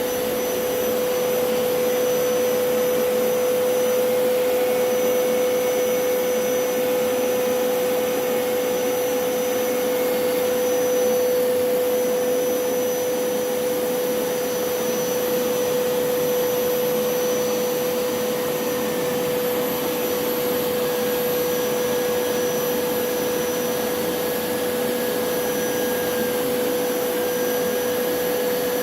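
Hoover PowerScrub Elite carpet cleaner running steadily, its suction motor giving a constant whine over the rush of air.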